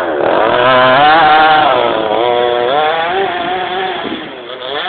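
Small two-stroke petrol engine of a large-scale RC monster truck revving up and down under throttle, easing off to a lower, quieter speed near the end.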